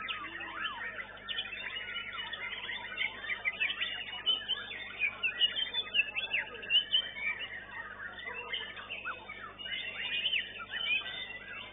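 Many caged white-rumped shamas (murai batu) singing together in competition: a dense, overlapping chorus of whistles, trills and quick chirps, with louder phrases around the middle.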